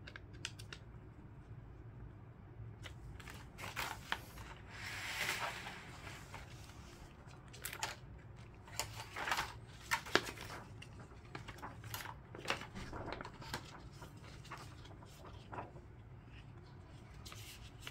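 Parts of a taken-apart membrane keyboard being handled: the thin plastic contact membrane sheets rustle and crinkle, with scattered light clicks and taps of plastic.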